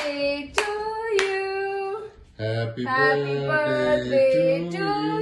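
Singing with hand claps: for the first two seconds a clap about every 0.6 s, each followed by a held sung note. After a short break, lower, fuller singing without claps runs on.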